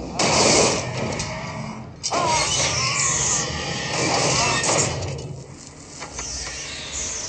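Film soundtrack playing on a TV: a steady low rumble with brief voice-like cries over it.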